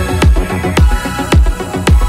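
Electronic background music with a steady kick-drum beat, just under two beats a second.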